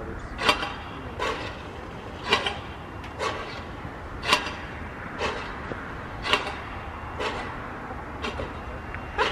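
Soundmaster outdoor warning siren with its motor frozen in the cold, so no tone comes out: only its solenoid-driven dampers click, about once a second, as it cycles its high-low signal.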